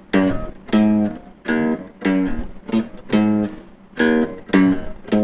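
A guitar tune played in strummed chords, about two strums a second, each chord ringing and dying away before the next, picked up by a lavalier microphone clipped to the player's chest.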